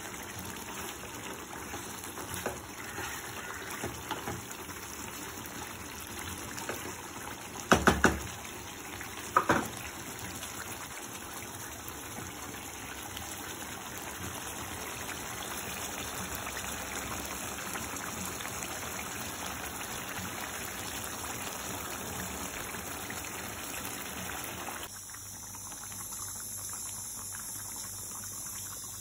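Water running steadily, with a couple of sharp clatters about eight and nine and a half seconds in.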